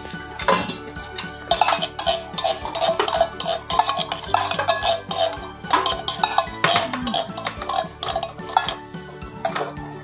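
Repeated knocks and clinks of an opened tin can and canned fruit being tipped into a plastic colander to drain, over background music.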